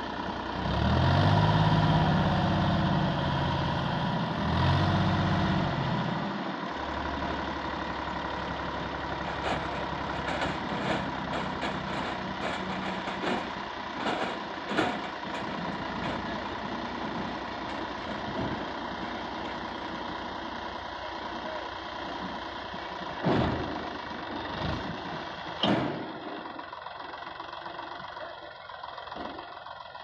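Sonalika tractor's diesel engine revs up for the first several seconds while the hydraulic tipping trailer raises its load of soil, then settles to a steady idle. Scattered knocks and two louder thuds come later, from soil and clods sliding off the tipped bed.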